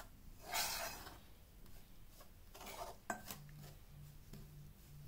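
Faint scraping and rubbing in a bowl as flour, curd and melted butter are worked together by hand to start a kulcha dough, with a louder brush about half a second in and a few lighter ones around three seconds in.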